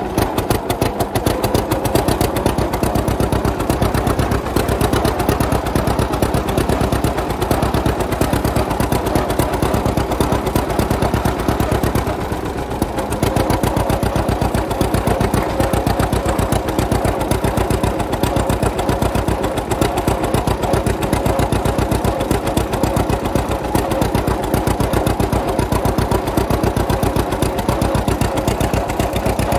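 1939 John Deere Model A two-cylinder tractor engine running with a fast, steady popping exhaust beat. The level dips briefly about twelve seconds in.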